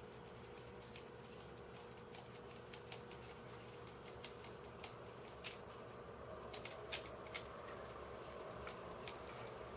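Faint, irregular clicks and ticks of a screwdriver driving a screw into 3D-printed plastic puzzle pieces held in the hand, with small plastic parts knocking together. A cluster of louder clicks comes about five to seven and a half seconds in, over a faint steady hum.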